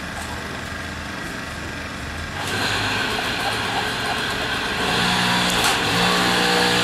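Small moped engine running, revving up sharply about two and a half seconds in and rising again to a higher, steady note around five seconds in.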